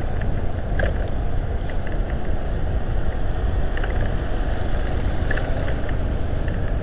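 Steady low rumble of a motorcycle on the move: the engine running under wind noise on the microphone.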